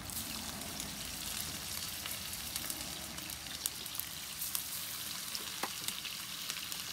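Bass and walleye fillets frying in hot oil in a skillet on a propane camp stove: a steady sizzle with scattered small pops and crackles.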